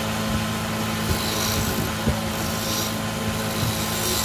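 Wood lathe motor running with a steady hum while a hand-held chisel cuts into the spinning wooden egg blank, the scraping hiss of the cut coming in short spells about a second in and again near three seconds.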